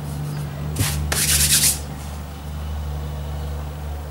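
Hands rubbing and pressing ready-to-roll icing over a cake, with two brushing rubs about a second in, the second longer and the loudest. A steady low hum runs underneath.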